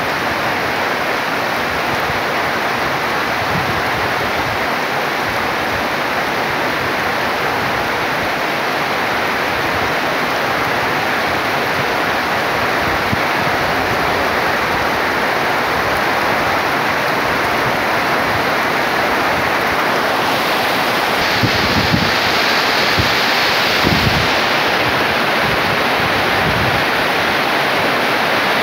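Heavy rain pouring steadily in a downpour, a loud even hiss. A few low thumps come about three-quarters of the way through.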